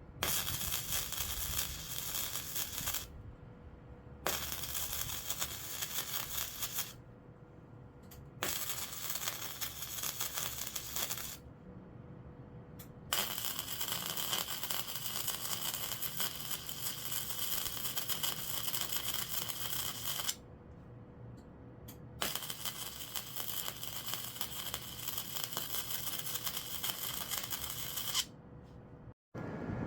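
Flux-core wire welder arc crackling and spitting in five runs of a few seconds each, stopping briefly between them, as the welder is pulsed along short beads rather than run in one straight pass. A faint steady hum sits underneath.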